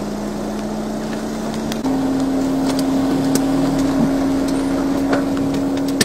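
Motor engine running steadily at idle, its pitch stepping up slightly about two seconds in and then holding.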